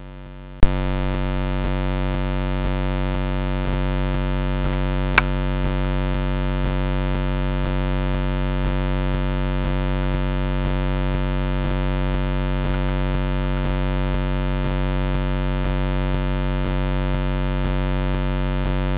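Steady electrical hum with many overtones, which starts suddenly with a click about half a second in and then holds unchanged. A single sharp click comes about five seconds in.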